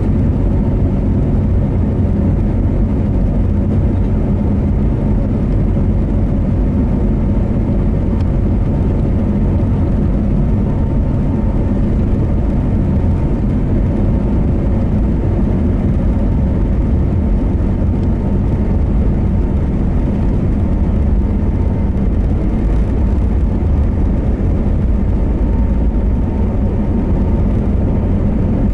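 Airbus A321neo jet engines running at taxi power, heard inside the passenger cabin as a steady low rumble with a faint steady hum above it.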